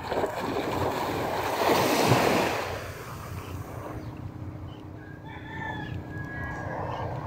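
Wind and sea water rushing around a small boat, loudest in the first three seconds. A little past the middle, a rooster crows faintly in the distance as a short run of high held notes.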